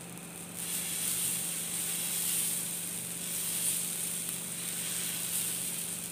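Thick adai batter sizzling on a hot dosa griddle as it is poured and spread with a ladle; the sizzle starts about half a second in.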